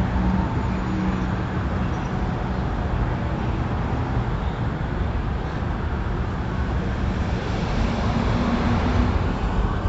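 Steady rumble of idling trucks in stopped highway traffic, with a faint engine hum coming and going.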